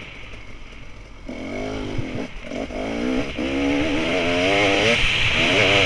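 Dirt bike engine, heard from on the bike, off the throttle at first, then revving up and down as the rider accelerates along the trail. Two brief throttle cuts come in the middle, and the engine runs higher and louder toward the end.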